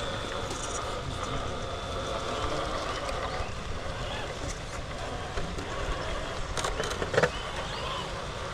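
Scale RC rock crawler driving over the trail: a steady faint whine of its electric motor and gears over a rough rumble, with a couple of sharp knocks about two-thirds of the way through.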